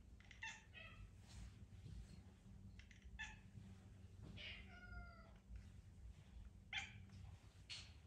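Domestic cat meowing again and again to be petted: several short complaining meows, with a longer one about halfway through that falls in pitch.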